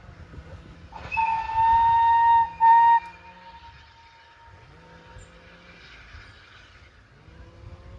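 Steam locomotive whistle giving two blasts on one steady pitch, starting about a second in: a long blast of about a second and a half, then a short one. A faint low rumble runs underneath.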